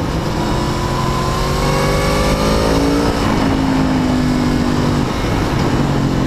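Aprilia Tuono V4 APRC Factory's V4 engine under way. Its pitch rises for about three seconds, then drops to a lower, roughly steady note, over a steady rush of wind and road noise.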